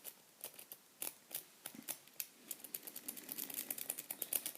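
Metal lock pick raking in and out of a Yale pin-tumbler padlock's keyway: quick light metallic clicks and scrapes as it rides over the pins, sparse at first and coming fast and dense from about halfway.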